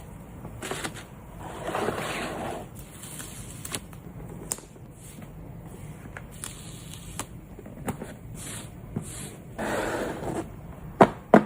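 Photocard-packing materials being handled: plastic sleeves and wrapping crinkling and rustling in two longer swells, with scattered light taps and clicks, and two sharp loud clicks near the end.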